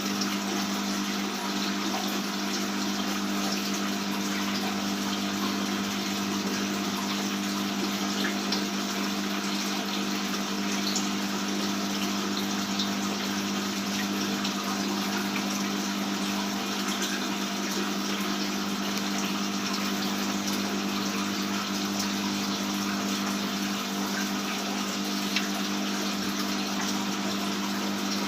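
Aquarium water pump or filter running with a steady hum, water splashing and trickling into the tank.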